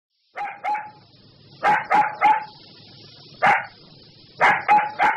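A dog barking in short, sharp barks: a pair near the start, a quick run of three at about two seconds, one at three and a half seconds, then three more quickly near the end, with a faint hiss in between.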